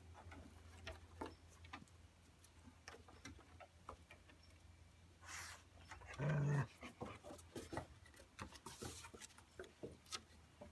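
A Dalmatian puppy and a shaggy brown dog playing on a wooden deck: claws clicking and scrabbling on the boards, with one short, low dog vocalization about six seconds in.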